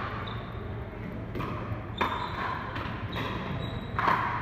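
Pickleball rally: paddles striking the hard plastic ball, about five sharp pocks a half-second to a second apart, the loudest near the end, each echoing briefly in the hall.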